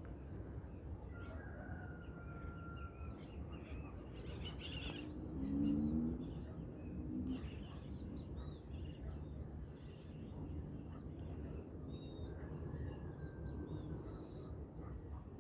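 Many birds chirping and calling at once, with a few longer thin whistles. The loudest sound is a lower, pitched call about five to seven seconds in, over a steady low rumble.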